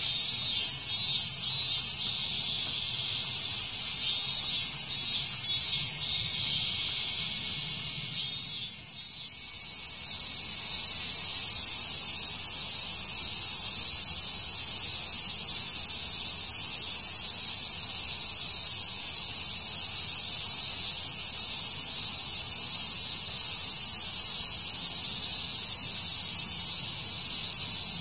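A steady, high-pitched chorus of insects that drops briefly about nine seconds in.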